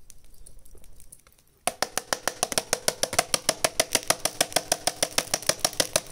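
A small engine starts abruptly about a second and a half in and runs with an even, rapid beat of about nine pulses a second.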